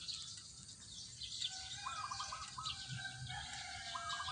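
Faint wild birdsong: a short warbled phrase sung twice, about two and a half seconds apart, over thin high chirps from other birds.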